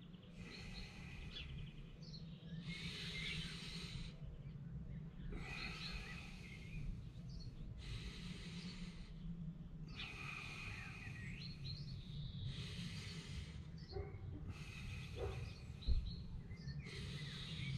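A man's slow, deep breaths in and out, repeated every couple of seconds, as he breathes into the back of his ribcage during a breathing-stretch exercise with his knees pulled to his chest.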